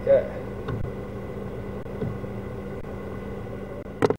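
A rooster's crow trails off right at the start, then a steady machine hum with a constant tone, like a motor running, with a short sharp knock about four seconds in.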